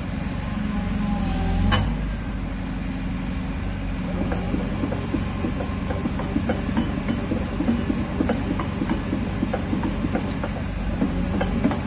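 2013 JCB JS160LC tracked excavator's diesel engine running steadily. A brief whine comes near the start, and from about four seconds in there is a fast, uneven clatter of small metallic clicks.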